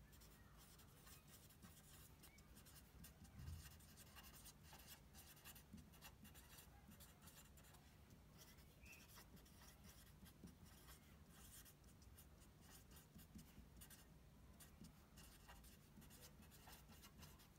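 Faint scratching of a marker pen writing on a white sheet, a run of short strokes as words are written out, with one soft low bump about three and a half seconds in.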